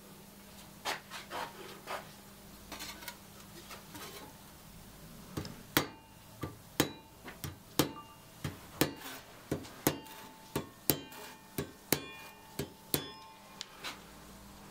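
A small saw hammer tapping the steel blade of a Japanese ryoba saw against a small anvil. A few light taps come first. About halfway through, a steady run of sharper strikes starts, about two a second, each with a brief metallic ring.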